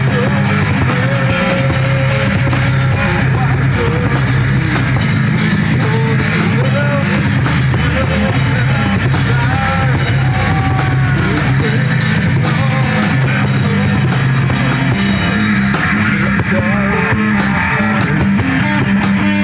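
Live heavy metal band playing loud, with electric guitars driving the sound.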